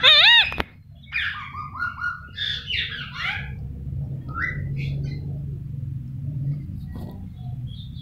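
Indian ringneck parakeet giving one loud, wavering call right at the start, followed by a few seconds of softer chirps and chatter.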